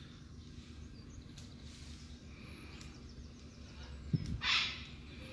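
Quiet outdoor background noise with a steady low rumble. A short rustling noise comes about four seconds in.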